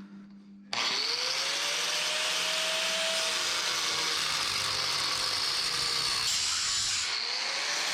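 Handheld power tool spinning up and running hard on metal, a loud steady hiss over a motor tone that rises as it comes up to speed. It dips briefly near the end and spins up again. It is being used to take the old suspension bracket off.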